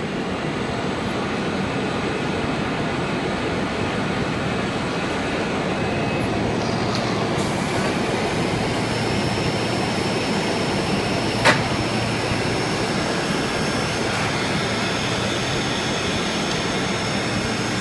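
Automated filling and capping line with its conveyor belt running: a steady mechanical noise, with one sharp click about two-thirds of the way through.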